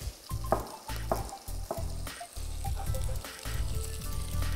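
Chopped celery and shallot sizzling in olive oil in a saucepan, with a few sharp knife chops on a cutting board as celery leaves are chopped.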